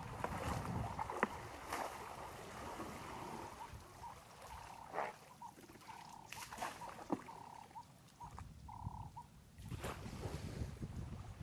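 Wind rumbling on the microphone over faint water splashing as two African elephants wrestle in a waterhole. Through the middle, an animal gives a run of short, even-pitched hoots, a few of them drawn out longer.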